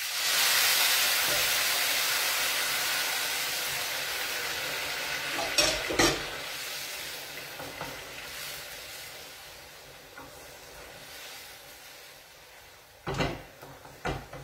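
Vegetable broth poured into a hot pan of rice for risotto, hissing and sizzling loudly at once, then slowly dying down to a quieter simmer. A utensil knocks against the pan twice around the middle and twice near the end.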